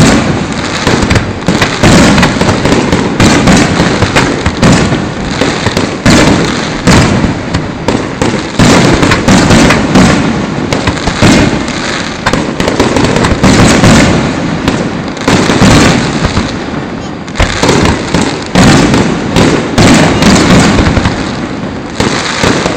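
Fireworks display: a dense, rapid barrage of shell bursts and crackling, very loud, with short dips between volleys every few seconds.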